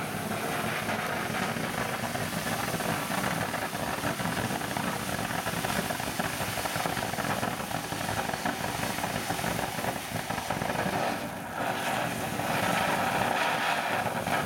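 Phantom Fireworks Flower Pot ground fountain burning, a steady hissing rush of sparks. It dips briefly near the end, then comes back slightly louder.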